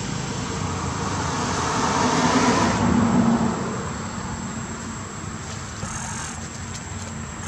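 Noise of a passing road vehicle, swelling to a peak about three seconds in and then fading.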